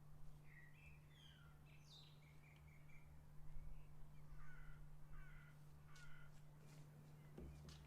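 Faint birds chirping in short calls and little glides, over a steady low hum, with a few sharp clicks in the last couple of seconds.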